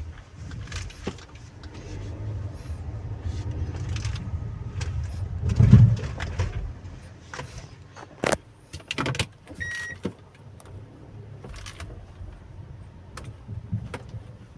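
Cabin sound of a Hyundai Creta rolling over a speed hump: a low road rumble, a heavy thump about six seconds in, then several sharp clicks and knocks from the front suspension. This is the front left-side noise that the mechanic puts down to a worn, oil-leaking shock absorber. A short beep sounds near the end of the clicks.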